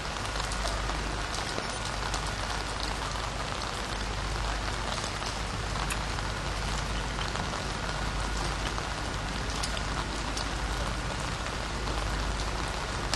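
Steady, even hiss spread across the whole range, scattered with many small sharp ticks, over a constant low hum.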